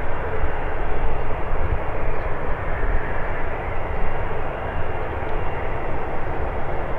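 Boeing 787 Dreamliner's jet engines at climb power, heard from the ground as a steady rumbling roar with a faint whine in it as the airliner climbs away.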